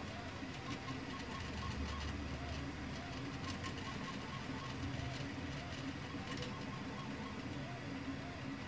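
Geeetech aluminium Prusa i3 3D printer running a print: the stepper motors give short rising-and-falling whines, repeating as the head moves, over a steady hum, with light ticks.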